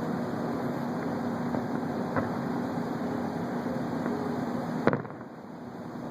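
Steady rumbling background noise with a constant low hum, with a few faint pops of distant fireworks and one sharp crack about five seconds in.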